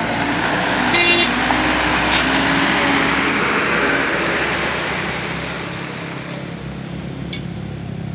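Loaded Mitsubishi Fuso diesel truck driving away along a gravel road, its engine and tyres on the gravel swelling over the first couple of seconds and then fading.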